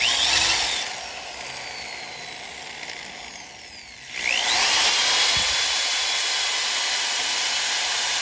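Hand-held electric drill boring into the aluminium crown of a seized piston in a 440 big-block V8 cylinder. It runs loud briefly and eases off for about three seconds. About four seconds in it spins up again with a rising whine and keeps cutting steadily.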